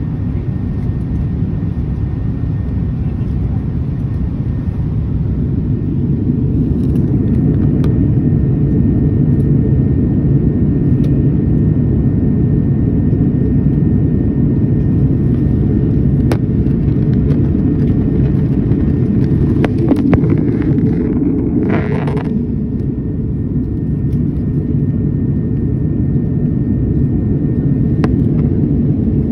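Steady low rumble inside an airliner cabin in flight: jet engine and airflow noise, a little louder from about six seconds in, with a few faint clicks.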